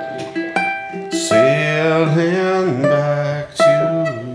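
Ukulele being picked note by note, joined about a second in by a voice singing long held notes over it.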